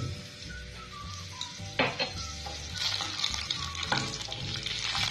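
Mustard seeds and a slit green chili sizzling in hot oil in a nonstick frying pan, with a couple of sharp pops, the sizzle growing louder about halfway through as a spatula stirs them.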